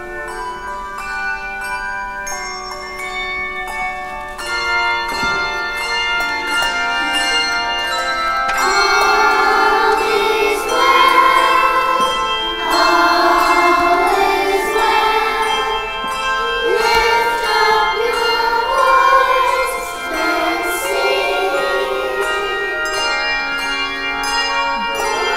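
Handbell ensemble ringing chords, the struck bells sustaining and overlapping. About eight seconds in, a children's choir comes in singing over the bells, and the music grows louder.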